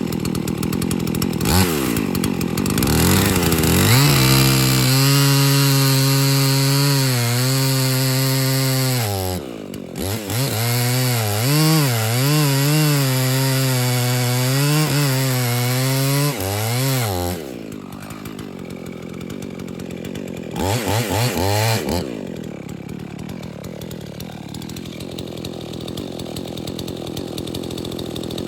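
Two-stroke chainsaw revving to full throttle and cutting a felling notch in a poplar trunk, its pitch sagging and surging under load. Past the middle it drops back to idle, gives one short burst of throttle, then idles.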